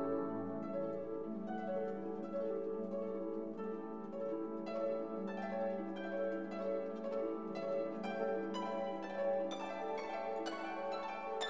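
Orchestral background music: plucked harp or pizzicato string notes over held string tones.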